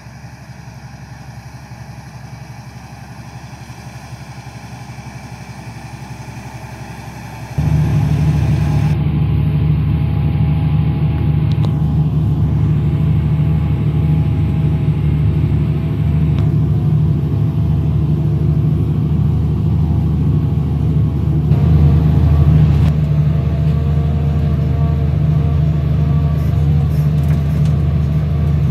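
Fendt 1050 Vario tractor's six-cylinder diesel running steadily under load while pulling a Horsch Terrano cultivator. For the first few seconds it is heard from outside, at a moderate level. About a quarter of the way in it becomes much louder and fuller, heard from inside the cab.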